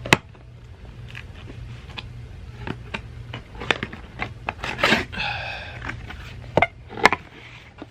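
Hands rummaging through a camera's retail box and its packaging: scattered clicks and knocks of cardboard and accessories, a rustle and a short squeaky rub about five seconds in, over a low steady hum.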